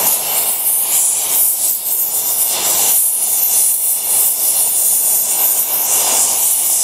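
Gas cutting torch flame hissing steadily as it preheats a spot on a steel flywheel ring gear toward orange heat, before the cut is started.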